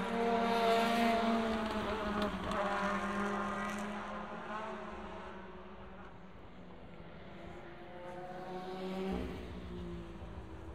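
WTCC touring cars' 1.6-litre turbocharged four-cylinder engines running through the S-curves. One car's engine is loudest about a second in and fades over the next few seconds. A second car's engine builds and passes near the end.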